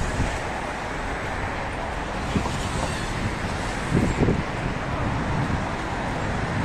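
Steady city road traffic noise from passing cars, a continuous rumble and tyre hiss with a brief swell about four seconds in.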